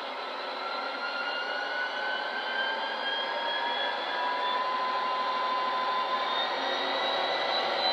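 Coastal DCC sound file of a Class 57 diesel locomotive, played through the small speakers of a Bachmann model: the engine sound running under power, with whining tones that climb slowly in pitch as it gets gradually louder.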